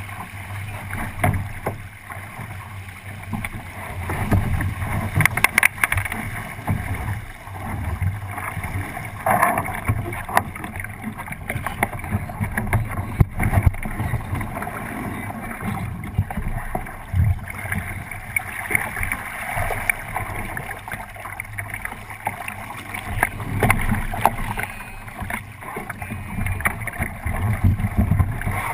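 Water rushing and splashing along the hull of a 29er skiff under sail, mixed with wind noise on the microphone, with scattered knocks as the crew move about the deck.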